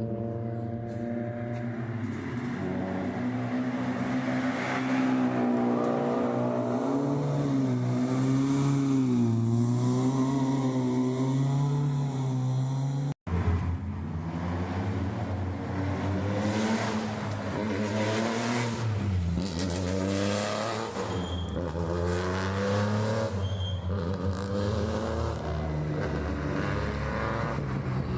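Rally car engine at full throttle, pitch repeatedly climbing through the revs and dropping as it accelerates and changes gear. The sound breaks off abruptly about 13 seconds in, and engine running of the same kind resumes at once.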